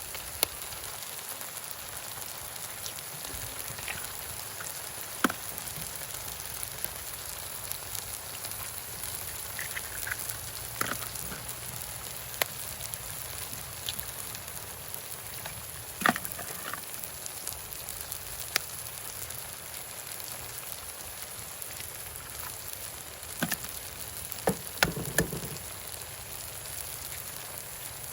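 Food frying in a pan, a steady sizzling hiss with scattered sharp clicks and taps.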